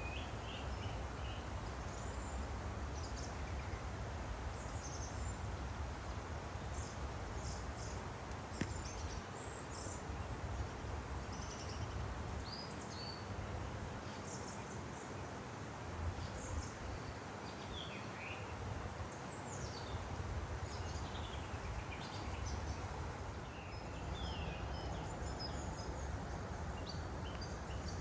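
A woodland stream flowing steadily, with small birds singing over it in many short, high chirps and quick falling notes throughout.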